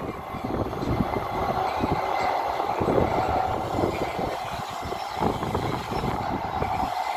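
Receding train of railway vans, its wheels clattering over the rails in irregular knocks, with a steady tone from the rails.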